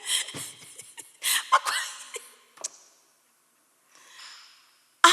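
A person's voice in short breathy bursts, followed by a sharp click about two and a half seconds in and a faint breath near the end.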